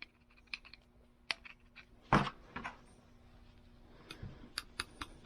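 Scattered light clicks and small knocks of freshly cleaned metal pliers being handled, with one louder knock about two seconds in.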